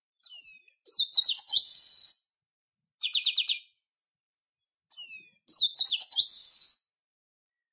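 Chestnut-capped blackbird (garibaldi) singing: two song phrases of falling whistled notes, each ending in a harsh buzz, with a quick run of repeated notes between them.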